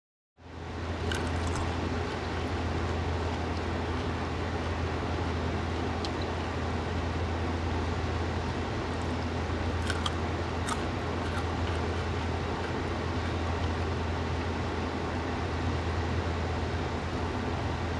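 Steady low hum and even background rumble of outdoor ambience, with a few faint, brief crisp clicks from pickles being bitten.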